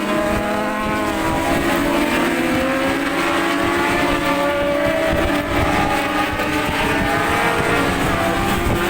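Several 600 cc supersport racing motorcycles at high revs together. Their engine notes overlap and keep rising and falling in pitch as the bikes accelerate and shift.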